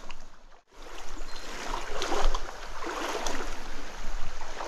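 Trout stream water rushing and splashing steadily, with a brief near-silent break about half a second in.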